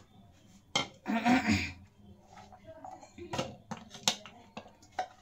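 Metal serving spoon scraping and clinking against a serving bowl and plate as chickpea salad is dished out, with a louder burst about a second in and a few sharp clinks in the second half.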